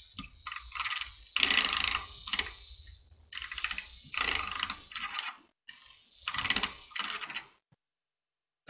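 Handheld battery mini-mixer whipping thick cream in a glass beaker, its whisk clattering against the glass in short, uneven bursts. The sound cuts off suddenly near the end.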